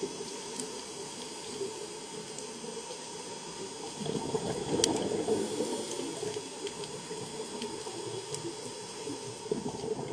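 Underwater ambience: a steady hiss of moving water with scattered faint clicks, swelling louder for a couple of seconds in the middle.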